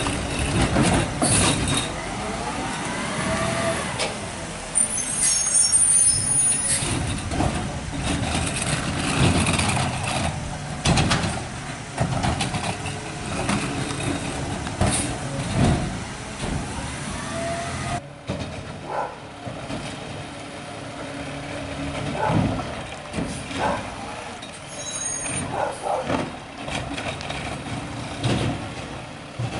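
Peterbilt 520 garbage truck with a McNeilus ZR rear-loader body working its route. Its diesel engine runs and pulls the truck away, with air brakes hissing and scattered metallic clanks.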